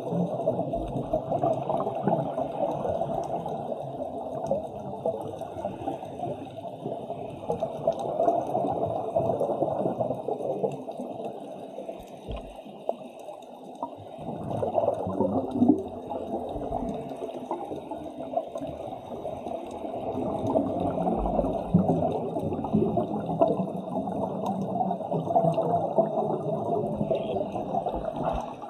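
Muffled underwater bubbling: a scuba diver's exhaled air bubbling out of the regulator, swelling in surges every five or six seconds.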